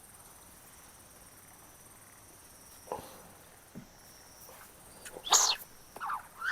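Insects chirping steadily, with a click about three seconds in and a short, loud noisy sound a little past five seconds, followed by a few softer noises near the end.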